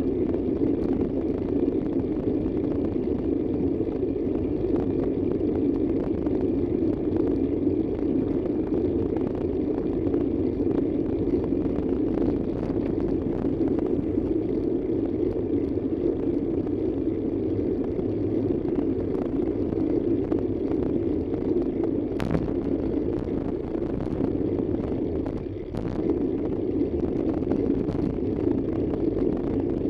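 Steady road vehicle driving noise, an even engine and road rumble with no change in speed. There is a single sharp click about two-thirds of the way through, and a short dip in level a few seconds later.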